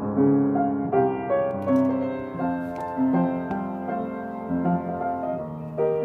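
Background music: a keyboard melody with chords, notes changing about every half second.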